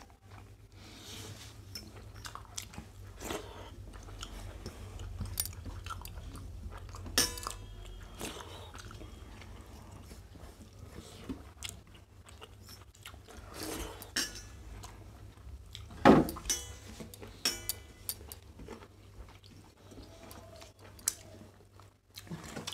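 Eating by hand: chewing and mouth sounds, with fingers working rice against stainless-steel thali plates and scattered small clinks and knocks of steel dishes over a steady low hum. A sharp knock about 16 seconds in is the loudest sound.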